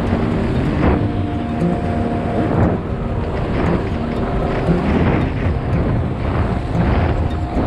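Outboard motor running steadily at cruising speed, driving an aluminium boat along a river, with repeated thumps about once a second as the hull hits small waves.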